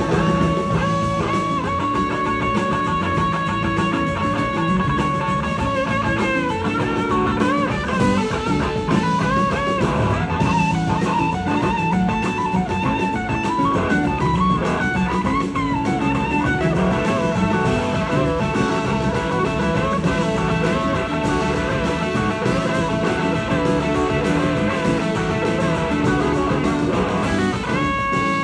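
Live rock band in an instrumental passage: electric guitar leads in long held notes that bend and glide, over drums and bass.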